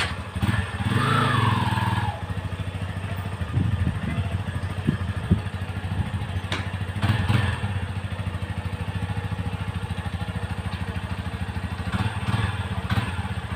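Yamaha Serow XT250's single-cylinder engine running at idle with its side stand raised, so the side-stand cut-off does not stop it. It is louder for the first two seconds, with a few short knocks in the middle.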